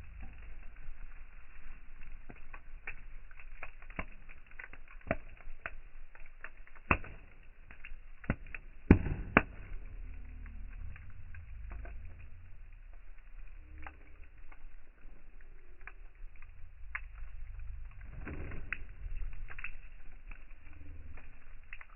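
Wood campfire crackling and popping irregularly, with a few louder snaps about 7 and 9 seconds in, over a steady low rumble.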